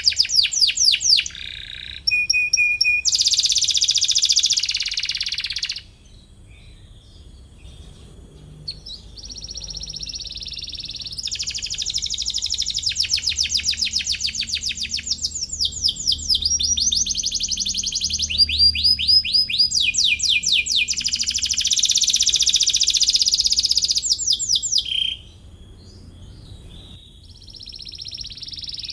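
Canary singing fast trills of rapidly repeated chirping notes in long phrases, with a quieter pause about six seconds in and another near the end.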